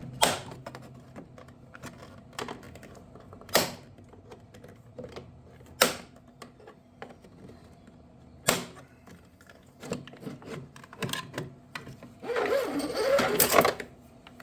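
Sharp clicks and knocks of tools and metal parts being handled during hand repair work on a riding mower, a few seconds apart, with a quick cluster after about ten seconds and a longer scraping rattle near the end.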